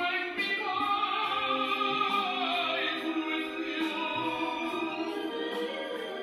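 Background music: an operatic voice singing long, sliding notes over classical accompaniment.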